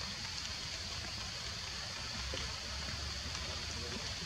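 Steady forest background hiss with an even high-pitched band on top, a low rumble swelling a little from about two seconds in, and a few faint ticks.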